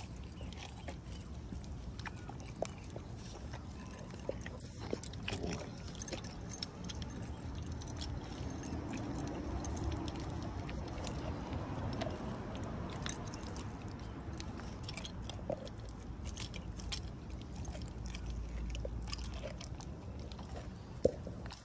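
American Pit Bull Terrier gnawing a raw meaty bone, with irregular clicks and the jangle of its metal chain and collar clip as it moves its head.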